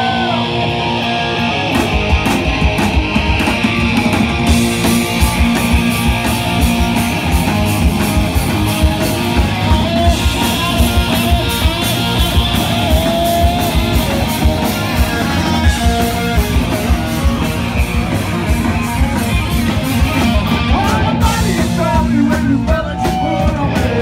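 Live rock band playing an electric guitar riff over a full drum kit. The drums come in about two seconds in, and the music stays loud and steady after that.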